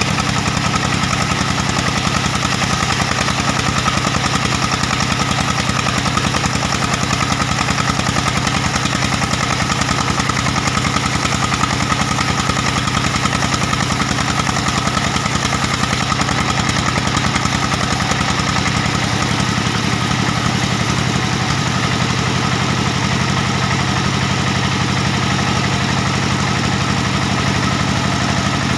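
Diesel engine of a band sawmill running steadily and loud, with a slight change in its note about two-thirds of the way through.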